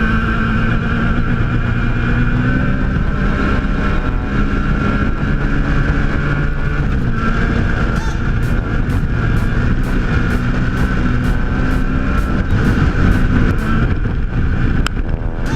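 Off-road race vehicle's engine running at fairly steady revs.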